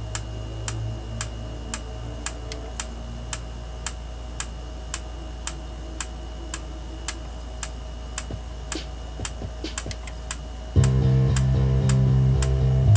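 A small pendulum clock ticking about twice a second. Near the end, loud music starts on the stereo.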